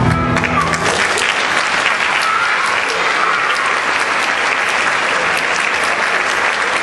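Audience applauding, a dense steady clapping that takes over as the song's last held note dies away in the first second.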